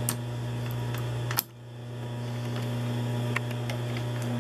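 Light metallic clicks of a bobbin case being handled and fitted into the rotary hook of a Consew 206RB industrial walking-foot sewing machine. There is one sharp click about a second and a half in, over a steady low electric hum.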